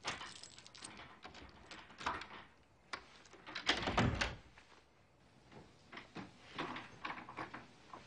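A door being handled: scattered clicks and knocks, with a dull thud about four seconds in.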